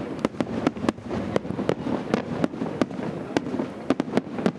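Fireworks display: a rapid, irregular string of sharp bangs, several a second, over a continuous low rumble.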